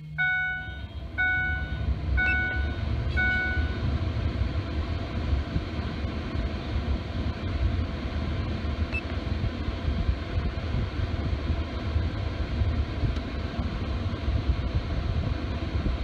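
With the ignition switched on, a dashboard warning chime in the truck cab dings about once a second, four times, fading out within the first few seconds. It sounds over a steady low rumbling rush of cab noise that runs on.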